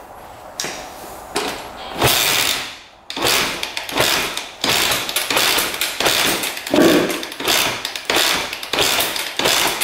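Honda CR125 two-stroke dirt bike being kicked over while flooded with fuel: a series of kicks, each a thump and a short rush as the engine turns over, about one every three-quarters of a second, without the engine running. The kicking clears excess fuel from the cylinder.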